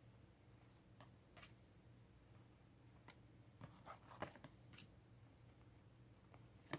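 Faint, scattered clicks and light scrapes of cardboard trading cards being slid off a hand-held stack one by one. There is a small cluster of them a little after the middle and a sharper click at the end.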